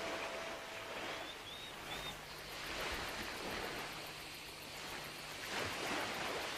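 Sea surf washing on the shore, a steady rushing noise. The last held notes of music fade out about a second in.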